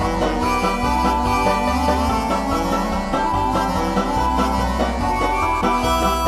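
Instrumental background music with a steady bass line under quick melodic notes.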